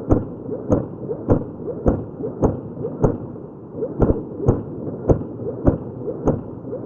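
A steady series of heavy, booming thumps, about one every 0.6 seconds, over a muffled rumble.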